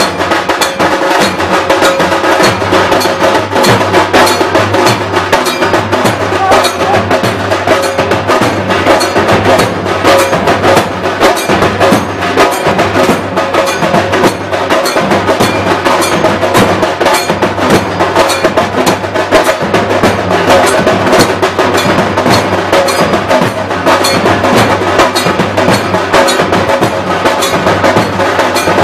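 Loud, fast, continuous traditional drumming with sharp, rapid strokes, the percussion for a palkhi (palanquin) dance.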